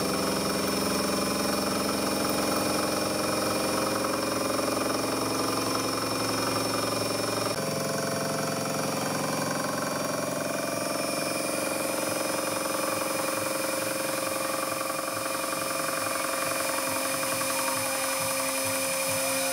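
Milling machine with a 1.5 kW synchronous motor and planetary gearbox running a T-slot cutter through a metal block, a steady machining sound of spindle and cutter at work. The sound changes abruptly about seven and a half seconds in, losing its lowest part.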